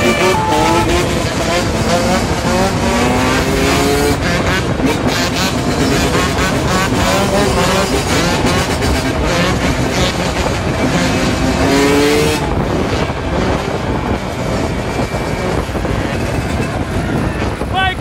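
Yamaha YZ125's single-cylinder two-stroke engine revving hard, its pitch climbing, dropping and climbing again as it pulls through the gears, over heavy wind noise.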